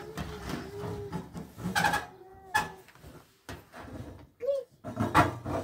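Metal clanks and scraping as ashes are cleared from the firebox of a sheet-metal wood stove, with several sharp knocks.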